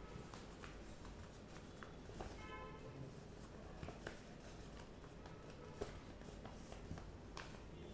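Faint rustling and creasing of accordion-pleated paper, about 100 gsm, being pressed and folded by hand, with scattered small clicks. A brief faint tone sounds about two and a half seconds in.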